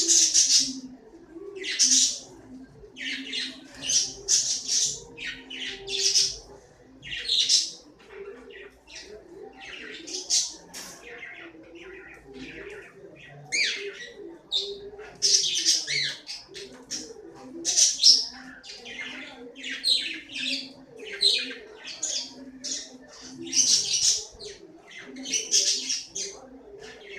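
Cockatiel calling over and over: harsh, high squawks and chirps, one every second or so, sometimes in quick runs of two or three.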